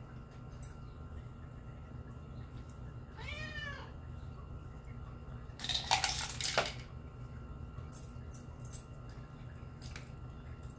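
A cat meows once, a short call that rises and falls in pitch, about three seconds in. A couple of seconds later comes a louder clatter lasting about a second, as the pink plastic cups of a cat treat puzzle feeder are knocked by the cat's paw, over a low steady hum.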